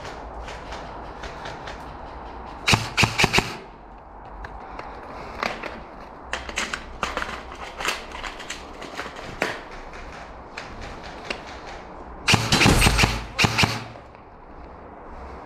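Airsoft electric rifle firing two short bursts of rapid shots, one about three seconds in and a louder one near the end, with lighter clicks and knocks in between.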